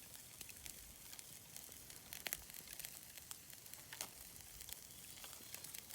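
Wood campfire burning, heard faintly: a steady hiss with scattered sharp crackles, a couple of them louder.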